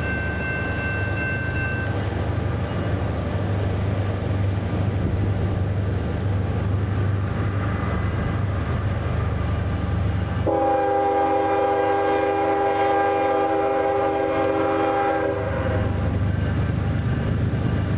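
Norfolk Southern freight locomotive approaching with a low steady rumble, its air horn sounding one long blast about ten seconds in that lasts about five seconds. High steady ringing, likely the grade-crossing bell, stops about two seconds in.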